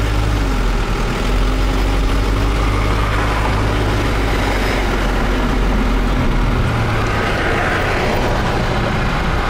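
Truck engine running at highway speed under a steady haze of tyre and road noise, heard from inside the cab. The deepest engine hum falls away about six and a half seconds in.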